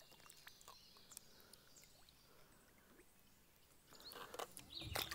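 Near silence with faint drips and ticks. About four seconds in, light water splashing and sloshing starts beside the kayak and grows louder as a released musky kicks away from the hull.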